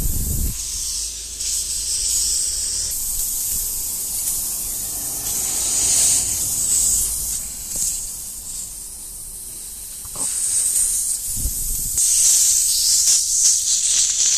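Pressurised air and tyre-sealant foam hissing out through the puncture in a Suzuki GSX650F's tyre, with foam spitting from the hole. The hiss swells and fades, strongest about halfway and again near the end. The sealant is not plugging the hole.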